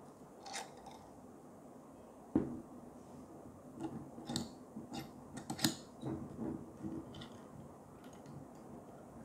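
Metal clicks and clinks from a super clamp's T-handle screw being turned by hand to loosen the clamp, with one sharp knock about two seconds in.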